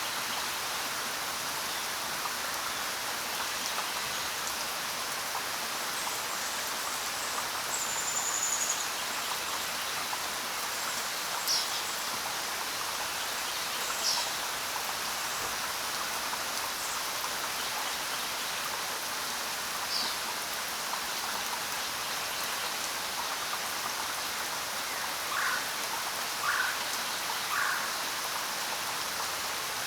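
Steady rain with a few scattered bird calls: a high whistle about eight seconds in, short high chirps now and then, and three short lower calls in a row near the end.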